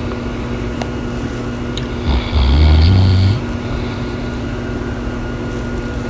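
A dog snoring: one low snore about two seconds in, lasting just over a second, over a steady faint hum.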